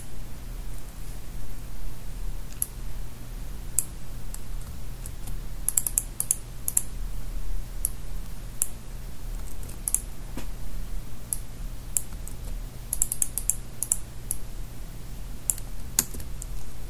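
Irregular clicks of computer keyboard keys and mouse buttons, some in quick clusters, over a steady low hum.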